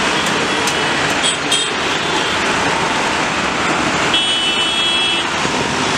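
Steady roar of road traffic, with a high-pitched vehicle horn sounding for about a second, about four seconds in. Two short high beeps come earlier.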